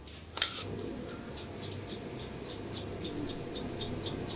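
Hairdressing scissors snipping repeatedly through dry hair, about four quick snips a second, taking bulk out of the ends during a dry cut.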